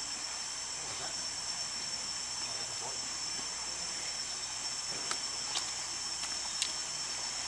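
Steady high-pitched drone of insects, even and unbroken. A few light knocks sound in the second half.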